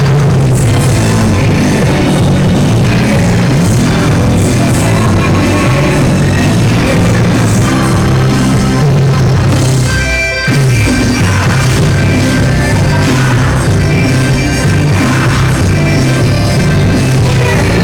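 Loud music playing continuously, with a brief break about ten seconds in.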